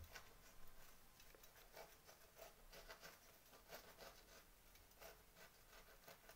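Faint, irregular scratching strokes of a knife sawing through a freshly baked sesame-topped qrachel, a soft Moroccan sweet bun.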